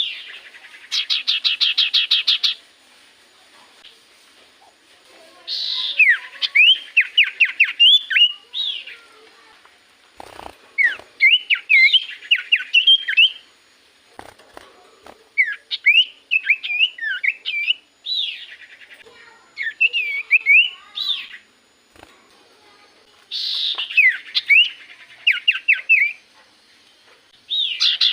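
Common iora (cipoh) singing lively: about seven bursts of rapid chirps and sharp downward-sweeping whistles, each lasting one to three seconds with short pauses between. A recording of this kind is played as a lure to draw in wild ioras.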